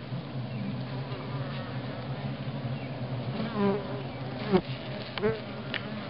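Honeybee colony humming steadily on the comb. Past the middle, a few brief louder buzzes slide up and down in pitch.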